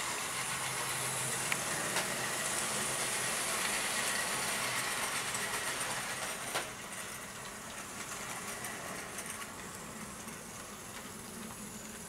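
Hornby OO gauge model train running on its track, a steady mechanical whirr and rattle that gets quieter after a sharp click about six and a half seconds in.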